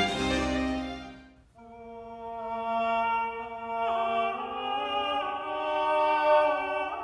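Background classical music. One passage fades out about a second and a half in, and slow, long-held notes follow, changing pitch every few seconds.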